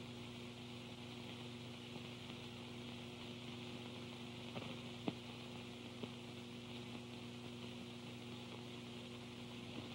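Steady hum and hiss of an old film soundtrack, with a few faint clicks about halfway through.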